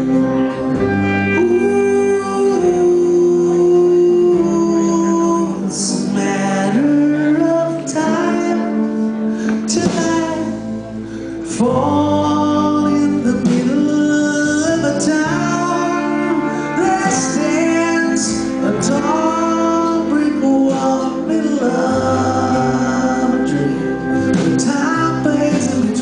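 Live band playing a song: strummed acoustic guitar and electric guitar, with a man singing lead at the microphone.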